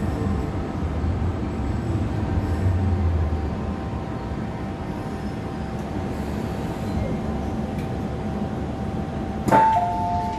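MTR M-Train running as it slows to a stop at a station platform. About nine seconds in, a sharp knock as the doors release, then a two-note door chime, high then low, as the doors open.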